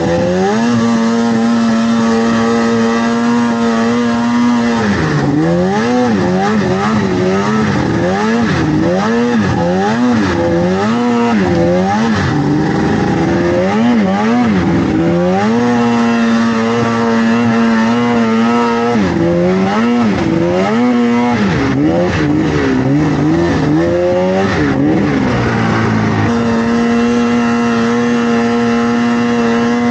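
Snowmobile engine running hard under load, its pitch held level for stretches and, in between, rising and falling quickly over and over as the throttle is worked. A steady rush of track and wind noise runs beneath it.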